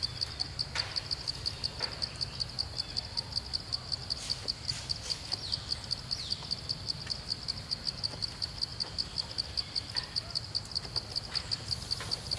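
An insect calling in a high, steady pulsing trill of about five pulses a second, with a few faint short chirps over it.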